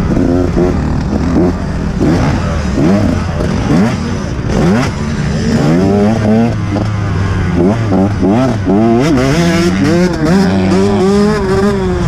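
Dirt bike engine revving hard and falling back over and over as the throttle is worked and gears change, its pitch climbing and dropping every second or two.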